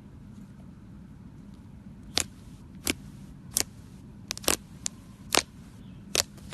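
Fluffy slime being pressed and squished, with about eight sharp pops of trapped air bursting, irregularly spaced from about two seconds in, over a faint steady hum.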